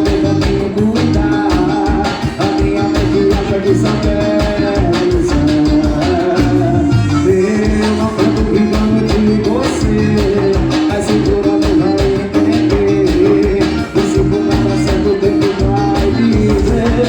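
Forró music with a steady, driving beat.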